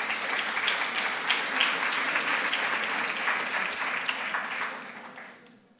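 A large seated audience applauding, with many claps merging into a steady, dense clapping that fades away over the last second or so.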